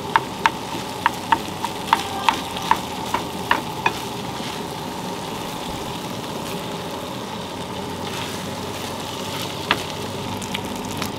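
Fried rice with shrimp and steak sizzling in a frying pan on a camp stove while it is stirred with a wooden spoon. The spoon knocks against the pan about two or three times a second for the first four seconds, then once more near the end.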